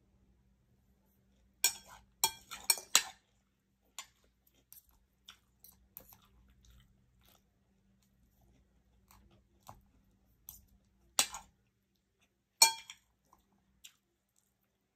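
Close-up eating sounds: chewing, with scattered sharp clicks and clinks of cutlery on a plate. A cluster of louder clinks comes about two to three seconds in, and two more come near the end.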